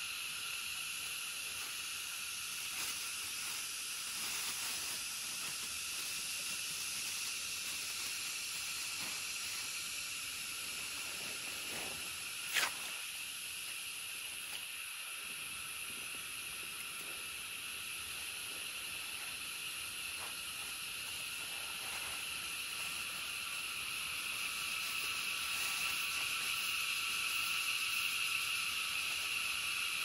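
Steady, hissing chorus of rainforest insects, growing a little louder near the end. A single sharp click cuts through it about halfway.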